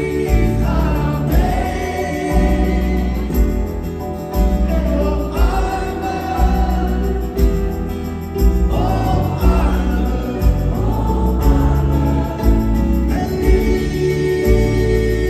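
Live pop-rock band playing, recorded from the audience: acoustic guitars, electric bass, piano and drums with singing, phrases of the vocal coming and going over the steady band.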